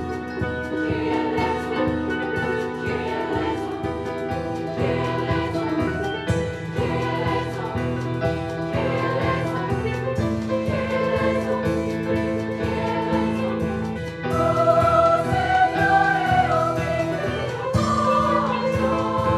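A choir singing a hymn with steel pan accompaniment, the pans struck in a steady pattern under sustained sung notes. The singing grows louder about 14 seconds in.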